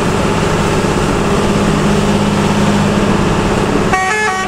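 Bus engine drone and the hiss of tyres on a rain-soaked road, heard from inside the bus. About four seconds in, a multi-tone musical horn starts a short stepping tune.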